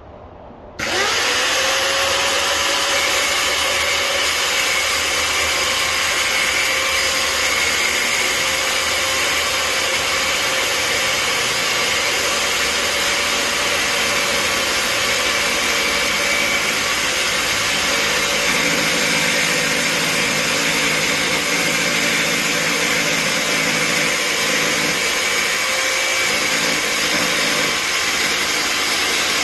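An electric power-tool motor switches on about a second in, spins up with a rising whine, then runs steadily at full speed, with small changes in tone in the second half.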